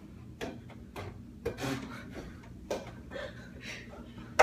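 A rally of sharp taps and knocks at uneven intervals, with shuffling and rubbing in between: a ball being hit back and forth and players moving about. The loudest knock comes near the end.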